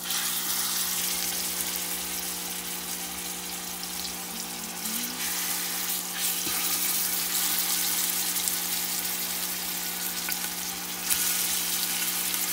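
Seasoned oxtail pieces sizzling as they sear in hot olive oil in a large stainless steel stockpot, added one at a time with tongs; the sizzle surges louder near the end. A steady low hum runs underneath.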